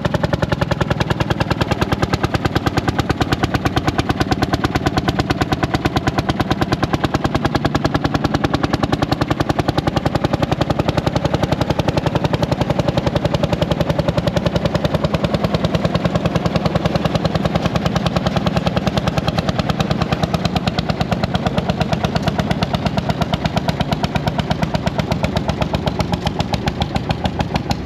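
Vintage Caterpillar D4 crawler tractor's engine running steadily, with a rapid, even beat of exhaust pulses.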